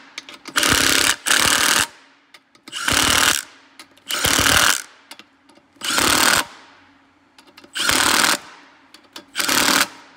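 Milwaukee cordless impact gun hammering beadlock ring bolts, seven short bursts about a second apart as it moves from bolt to bolt. The ring is being drawn down tighter and tighter to clamp the tire bead.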